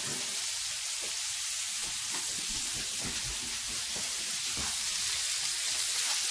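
Ground beef frying in hot oil in a pan: a steady sizzle.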